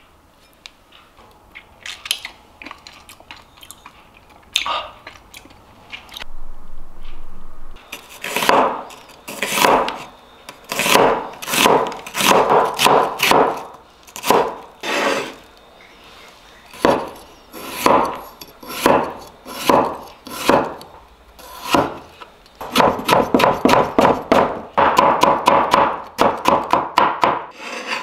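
Wide-bladed cleaver slicing onion on a wooden cutting board: a long series of separate drawn, scraping cuts, then a faster run of several cuts a second near the end as cucumber is cut into thin strips.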